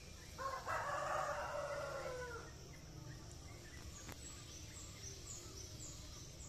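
A rooster crowing once, a single call of about two seconds that falls in pitch at its end, followed by a few short, high bird chirps.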